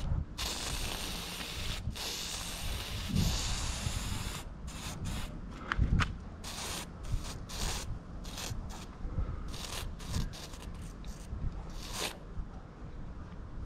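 Aerosol spray paint can with a handmade cap hissing as paint is sprayed onto a wall: one long spray, then a run of short, quick bursts of spray.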